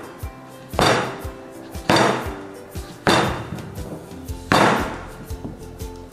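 A cleaver chopping a zucchini into thick rounds on a cutting board: four loud chops roughly a second apart, each dying away quickly.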